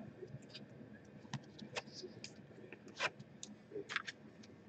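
Trading cards handled by hand: a few faint, scattered swishes and clicks as cards slide against each other, the loudest about three seconds in.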